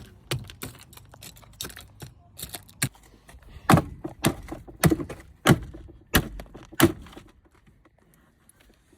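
Repeated hard blows struck on the car's interior: a run of lighter irregular knocks, then about six heavy strikes a little over half a second apart, stopping about seven seconds in.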